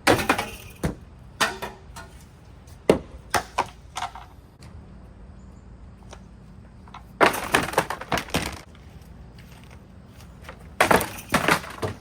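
A cheap hugger ceiling fan being broken apart: about five bursts of sharp cracking and clattering impacts, the longest about seven seconds in and near the end, over a steady low hum.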